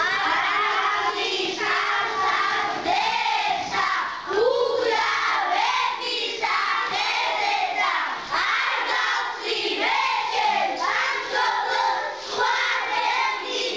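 A large group of children singing together.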